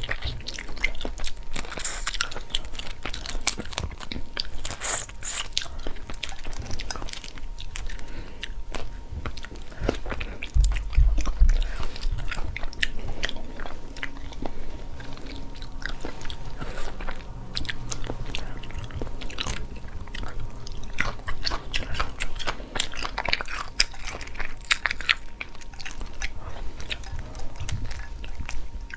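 A person biting and chewing freshly cooked shrimp, with many small crunching clicks of shell throughout. One low bump about eleven seconds in.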